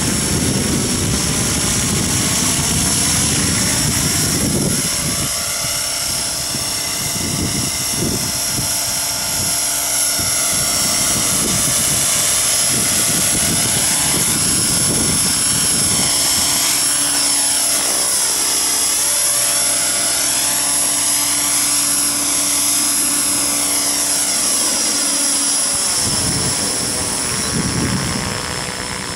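Align T-Rex 550E electric RC helicopter flying aerobatics: a steady high whine from the electric motor and drivetrain over the rush of the rotor blades. The pitch glides up and down as the helicopter passes and turns.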